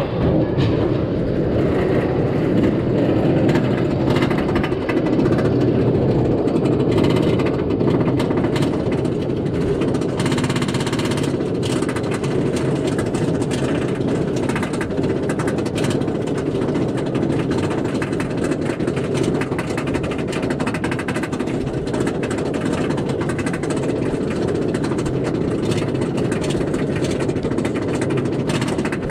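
Roller coaster train being hauled up a chain lift hill: the lift chain runs with a steady rapid clatter of anti-rollback clicks.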